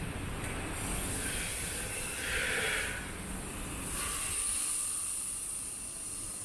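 City street background noise with a steady high hiss throughout. The hiss grows louder for about a second, a little over two seconds in, and a thinner, higher hiss holds from about four seconds in.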